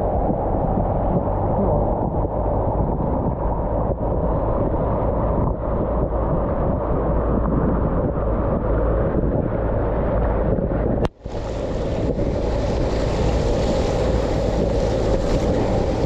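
Steady wind buffeting the microphone over rushing whitewater as the raft runs down the river. About eleven seconds in the sound drops out for a moment and comes back brighter.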